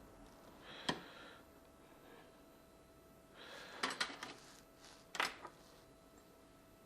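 Small metal tools and phone parts clicking and tapping during phone repair: a sharp click about a second in, a quick cluster of clicks around four seconds, and another click just after five seconds.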